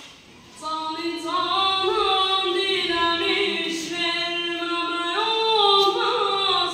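A boy singing unaccompanied in a high voice, holding long notes that glide from one pitch to the next. He comes in about half a second in.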